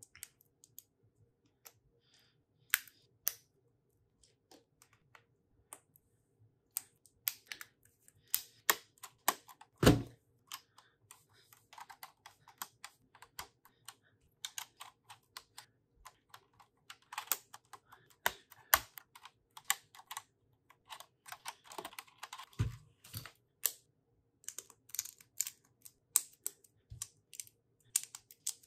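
Plastic Lego bricks clicking and rattling in quick, irregular clicks as they are handled and pressed together on a desktop. A heavier knock about ten seconds in is the loudest sound.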